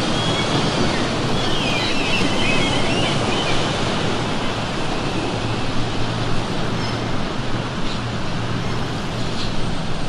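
Ocean surf washing steadily on a shore, with faint, wavering seagull cries from about one to three and a half seconds in.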